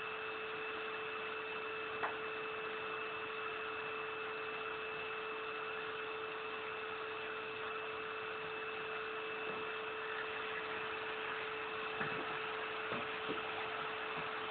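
Vacuum dust extractor running steadily with a constant whine, drawing dust through a Mirka Abranet hand sanding block. A few light knocks sound about two seconds in and again near the end.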